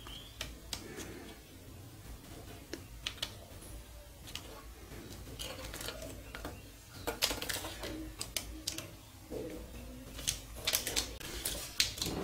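Irregular clicks and crackles of a plastic-wrapped car amplifier being handled and turned over, its protective film crinkling under the fingers, with the clicks thickest about seven seconds in and again near the end.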